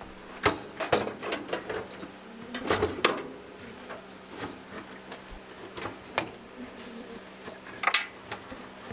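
Irregular knocks and clatter of hard objects being handled, thickest in the first three seconds, with a couple more sharp knocks near the end.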